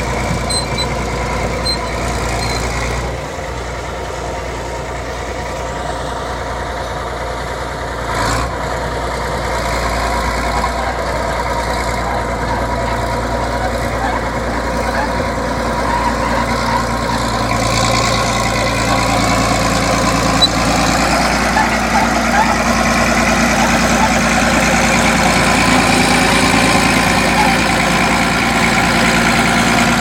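Crawler bulldozer's diesel engine running steadily while the dozer works, pushing soil with its blade; the sound grows somewhat louder over the second half.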